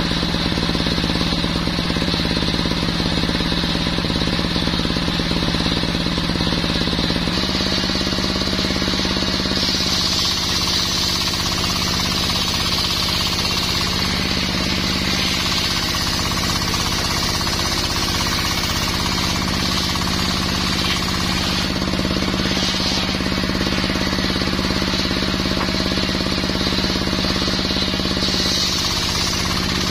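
Small petrol engine running a circular saw blade through mahogany. The engine note shifts about seven and a half seconds in, and a high whine from the blade in the wood swells from about ten seconds on, coming and going.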